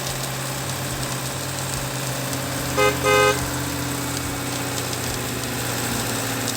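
A vehicle engine running with a steady low drone, and a horn giving two short toots about three seconds in.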